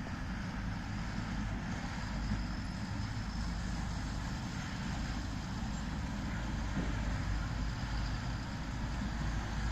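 Heavy truck driving on a dirt road: a steady low engine rumble mixed with road noise, with no change in pace.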